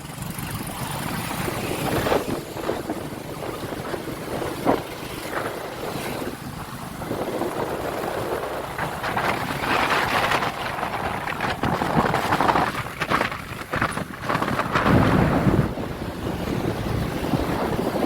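A vehicle engine running, with wind buffeting the microphone.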